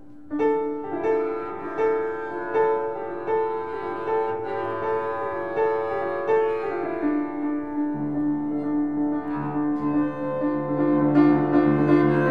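Piano played in evenly repeated chords, about one every three-quarters of a second, over a held tone. About eight seconds in, a bowed double bass joins with a low sustained note, and the music grows louder.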